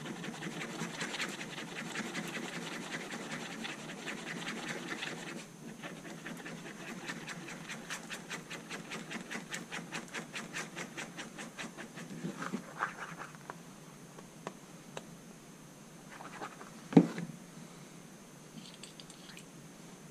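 A screwdriver tip stirring and scraping epoxy mixed with black paint on a piece of card, in quick rhythmic scratching strokes that slow to about four a second and fade out about twelve seconds in. A single sharp knock about seventeen seconds in.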